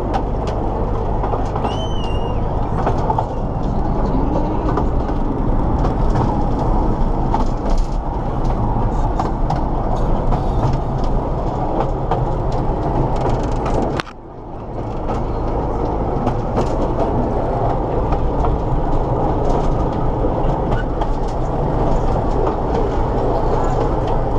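Small park train running along its track, heard from inside an open carriage: a steady rumble and rattle with a low hum underneath. The noise drops sharply for a moment about fourteen seconds in, then builds back up.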